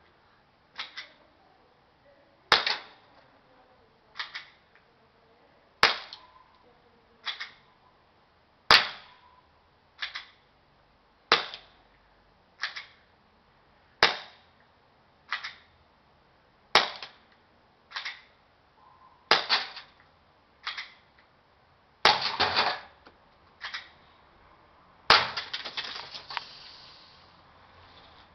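Airsoft Glock 18 gas blowback pistol (Firepower Negotiator, metal slide, green gas) firing single shots, about eighteen sharp cracks at roughly one every second and a half. The last few shots, near the end, ring on longer and rattle. The uploader says the pistol's blowback is not working well.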